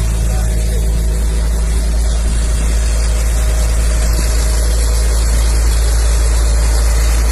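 Caterpillar 320C excavator's diesel engine running steadily with a deep rumble.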